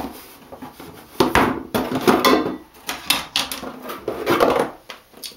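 Plastic hair-product bottles being picked up, set down and knocked together: an irregular run of knocks and rustles.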